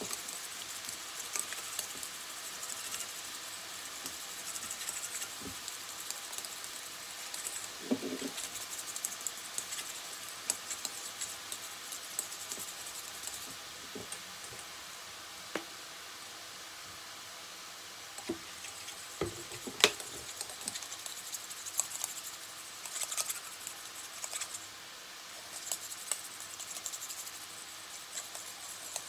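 Metal utensil stirring and scraping a grainy oil dressing around a stainless steel bowl: light, continuous scratchy scraping with scattered small clinks and one sharper clink about two-thirds of the way through.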